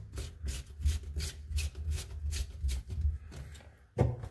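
Sink drain fittings being handled and pushed together by hand: a run of light clicks and rubbing, with a sharper knock about four seconds in.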